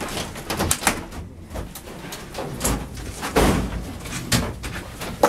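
A door being opened, followed by a series of knocks and clatters of people handling things, with a heavier thump about three and a half seconds in.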